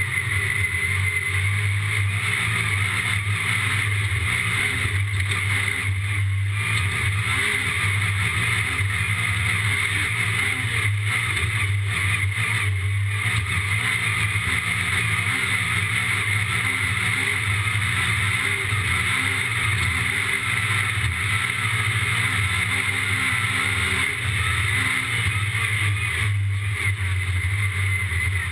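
Yamaha YXZ 1000R side-by-side's three-cylinder engine running steadily at speed, with a constant haze of vehicle noise around it.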